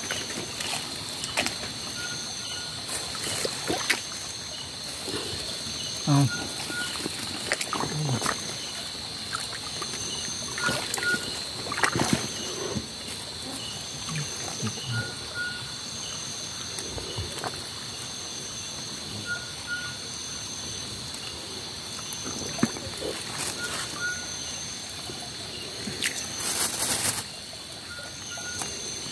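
A steady, high-pitched night chorus of insects, with a short call repeating every second or so, over the trickle of a shallow creek. Scattered splashes and knocks come from a hand net being worked in the water and leaves, with a louder rustle near the end.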